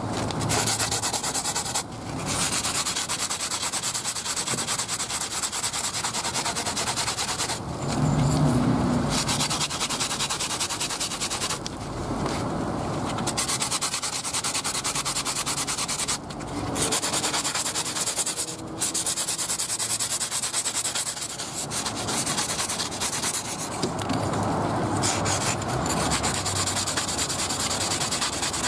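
Abrasive sanding sponge rubbed rapidly back and forth along a folding knife's grooved handle scale, rounding off its sharp milled edges. A steady scratching run of strokes, broken by brief pauses every few seconds.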